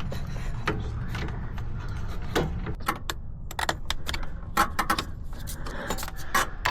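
Irregular metallic clinks and knocks of radiator parts and fittings being handled and seated in a car's engine bay, coming thicker in the second half, over a steady low rumble.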